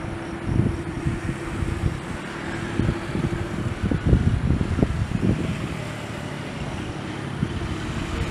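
Airport ambience: a steady hum from idling jet engines, with irregular gusts of wind buffeting the microphone.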